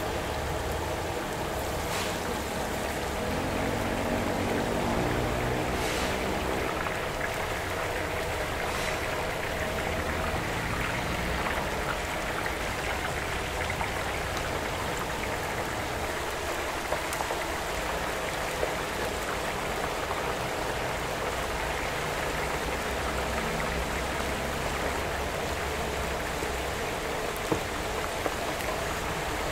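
Hot oil sizzling and bubbling steadily around a whole suckling pig deep-frying in a large wok, with oil ladled over the skin; a few sharp pops stand out.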